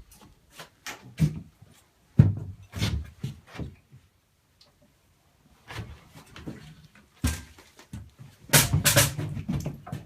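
A string of irregular knocks and thuds in uneven clusters, the loudest near the end: a motorcycle being moved about on a plywood turntable and homemade stand.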